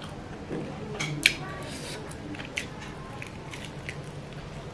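Close-miked eating sounds: a string of sharp wet mouth clicks and lip smacks while chewing and biting saucy food, the loudest smack a little over a second in.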